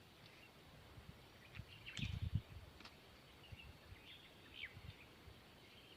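Faint outdoor ambience with a few short bird chirps and a brief cluster of low thumps about two seconds in.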